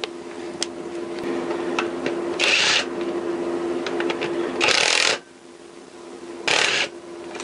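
Hand ratchet backing out the alternator chain tensioner bolts on a motorcycle crankcase: three short bursts of rapid clicking about two seconds apart, with small metal clicks between them, over a steady low hum.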